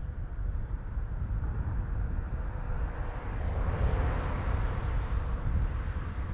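A car passes close by: its tyre and engine noise swells to a peak about four seconds in, then fades. Underneath is a steady low wind rumble from the moving bicycle.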